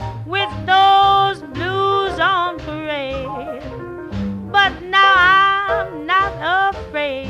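Swing jazz music with a lively lead melody in short, bending phrases over a steady rhythm accompaniment.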